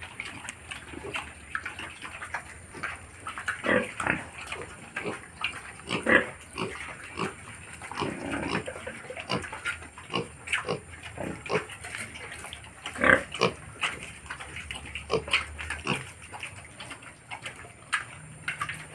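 Pigs grunting in many short, irregular calls.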